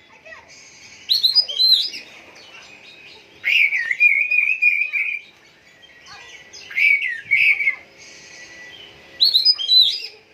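Kecer songbird singing in four bursts of quick, high whistled and chirping notes, with a thin steady high note carrying on faintly between the phrases.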